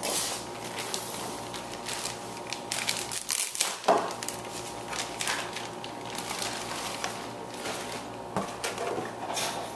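Irregular plastic clicking and crinkly rustling as the plastic toy parts and packaging are handled, with a louder run of clicks about three to four seconds in.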